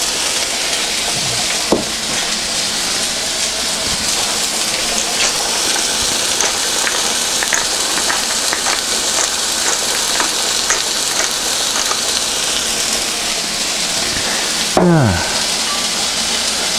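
Raw beef burger patty sizzling steadily on a hot, oiled cast-iron griddle, with small crackles and pops throughout. A light knock about two seconds in, and a short downward-sliding tone near the end.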